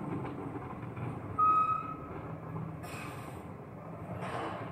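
Volvo bin lorry with a Farid Powerpack TT1 refuse body running steadily while collecting wheelie bins. A short high squeal comes about a second and a half in, and two brief hissing bursts follow near 3 and 4 seconds.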